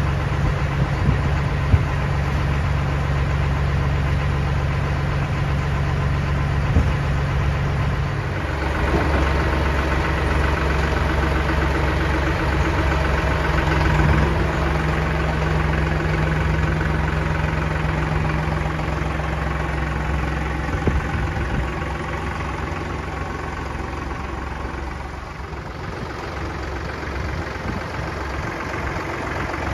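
An engine running steadily at low speed, its hum shifting slightly about eight seconds in and easing a little near the end.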